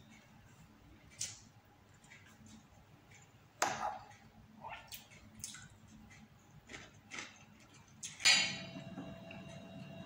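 Eating sounds from noodles and rice taken with a fork and spoon: scattered soft slurps, mouth sounds and light clinks of cutlery on a ceramic plate. Near the end a steady low hum comes in and holds.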